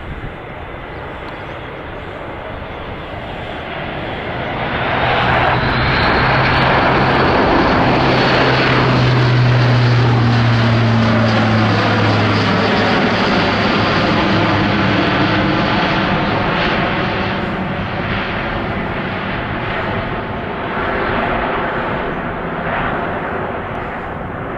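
Airbus A400M military transport's four turboprop engines with eight-bladed propellers on a low pass: a loud propeller drone that swells as the aircraft approaches, peaks overhead, then drops in pitch as it passes and eases off as it climbs away.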